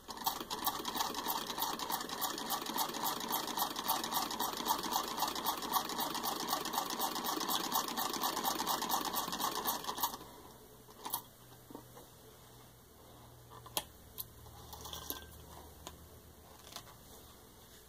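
1908 Singer Model 27 vibrating-shuttle sewing machine turned by hand at the handwheel, stitching through six layers of denim with an even clicking rhythm of about four to five stitches a second. The stitching stops about ten seconds in, followed by a few scattered clicks and knocks.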